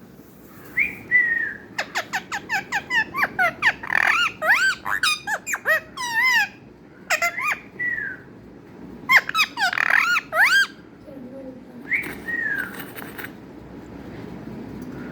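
Parrot calling: bursts of squeaky whistles and chirps that sweep up and down in pitch, with a quick run of rapid notes a couple of seconds in and short pauses between groups.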